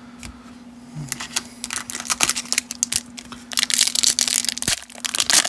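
Foil wrapper of a 1991 Leaf Studio baseball card pack being torn open and crinkled by hand: rapid crackling that starts about a second in and grows louder about halfway through.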